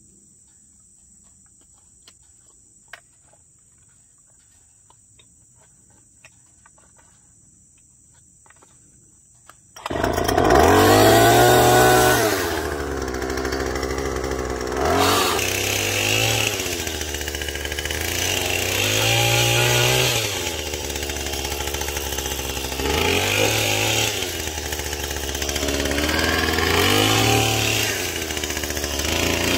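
Faint steady insect trilling with a few light clicks, then a gas-powered pole saw's small engine comes in suddenly about ten seconds in and runs loudly, revving up and easing off every few seconds as the chain cuts through weeds and brush.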